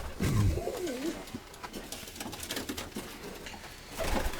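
Domestic pigeons cooing, with one wavering coo in the first second and fainter sounds after it.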